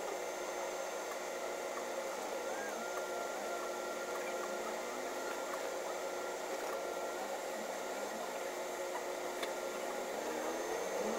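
Steady cabin noise inside a Solaris Urbino 18 III articulated city bus, a hiss and hum with a faint steady whine. Near the end the sound grows louder and its pitch rises as the bus accelerates.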